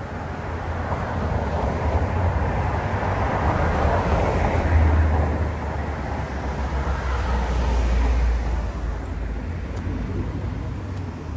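Road traffic passing on a street: the noise of a passing vehicle rises and falls, peaking about four to five seconds in, and a second swells and fades around eight seconds, over a steady low rumble.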